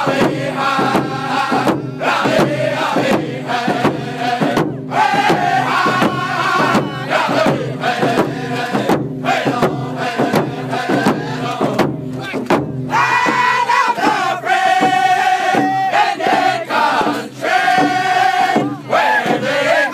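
Men singing a First Nations hand-drum song together while beating rawhide hand drums in a steady rhythm. About two-thirds of the way through, the voices rise to long, high held notes.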